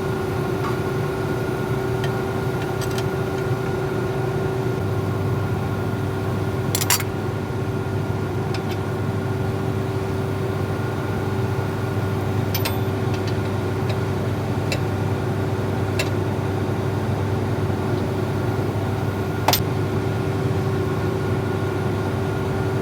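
An engine idling steadily, with a few sharp clicks scattered through, the loudest about seven seconds in and another near the end.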